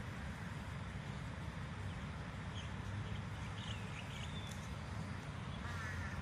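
Steady low outdoor background rumble with a few faint bird chirps over it, ending in a quick run of short chirps near the end.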